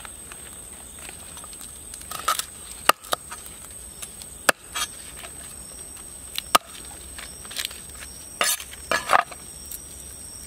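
Cleaver chopping garlic on a wooden chopping block: three separate sharp knocks of the blade on the wood, with softer crunchy cuts between them.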